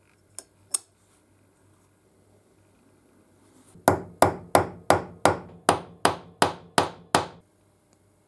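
A small hammer tapping the nameplate's pins into the cast-iron frame of a Beverly Shear B1: ten sharp, even strikes, about three a second, each with a short metallic ring. Two light clicks come a few seconds before the taps.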